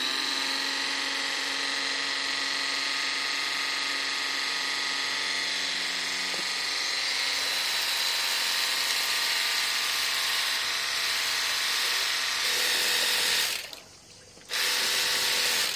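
Cordless battery-powered pressure washer gun running, its pump motor giving a steady whine as it sprays water. Near the end it cuts out for under a second, then starts again.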